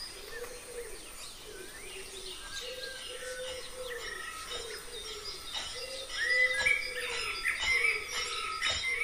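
Birds chirping and calling: a repeated low call under higher chirps, which grow louder about six seconds in.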